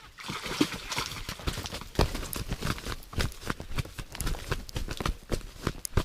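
A quick, irregular series of sharp knocks and crunches, several a second, starting abruptly.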